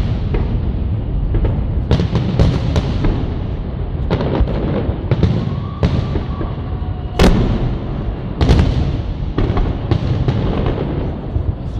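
Fireworks display: shells bursting in sharp bangs, irregularly about once a second, over a continuous low rumble. The loudest bursts come about seven and eight and a half seconds in.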